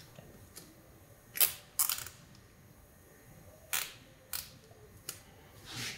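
Nylon cable ties being pulled tighter, giving short ratcheting zips: several separate pulls, the loudest about one and a half and two seconds in.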